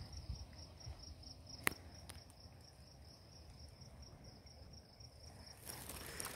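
Crickets chirping in a steady, even, high-pitched pulse, with low rumble underneath. A single sharp click comes about a second and a half in, and rustling starts near the end.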